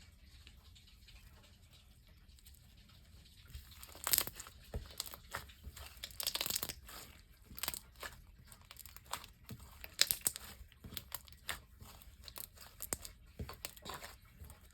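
Slime being squished, poked and stretched by hand, giving irregular sticky pops, clicks and crackles that start about four seconds in after a quiet opening.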